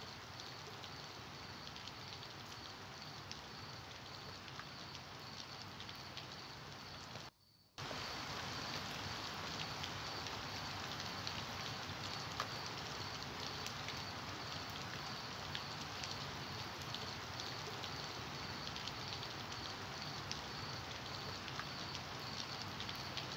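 Steady rain falling, with faint scattered drops pattering and a faint steady high whine behind it. The sound cuts out for a moment about seven seconds in and comes back a little louder.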